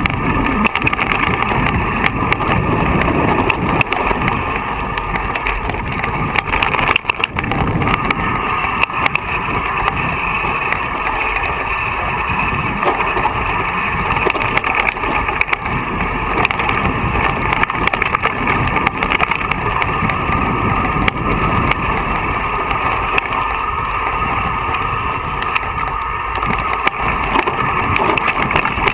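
Mountain bike ridden fast down a rocky, loose-gravel trail: a steady rush of wind on the camera's microphone with tyres crunching over stones and the bike rattling in many small knocks.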